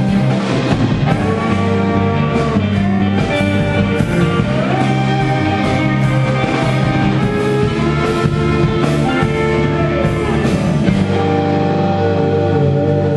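Live rock band playing a blues number on electric guitars, electric bass and drum kit.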